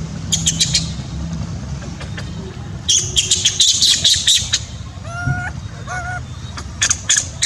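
Clusters of quick, high-pitched chirping and squeaking calls come in three bouts, with a few short, clear-pitched calls between the second and third, over a steady low rumble.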